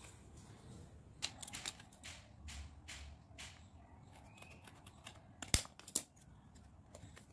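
Small scissors snipping open a card-and-plastic blister pack: a run of crisp cuts, then two sharp knocks about half a second apart near the end, the loudest sounds, as hard objects are set down on the tiled floor.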